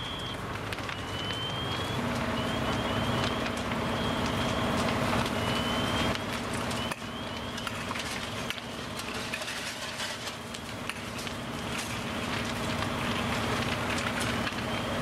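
Fire engine's engine running steadily at the scene, a steady hum setting in about two seconds in, over the crackling and popping of a fully involved house fire.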